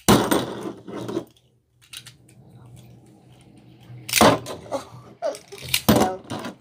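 Plastic wrapper crinkling, then a Beyblade launcher's ripcord pulled through the launcher twice, each pull a quick zipping rattle of clicks.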